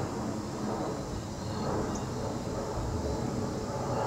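Airbus A320 jet airliner on landing approach passing overhead: a steady low rumble of its engines.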